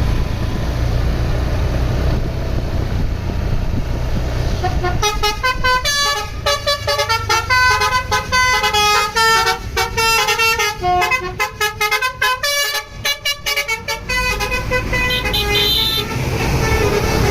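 Indonesian bus 'telolet' basuri horn playing a fast melody of short tooting notes, starting about five seconds in after a low rumble and thinning out near the end.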